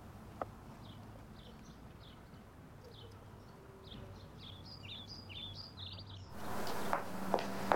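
Small birds chirping and twittering over a quiet outdoor background. About six seconds in, this cuts off abruptly into a louder, hissy background with a few sharp clicks.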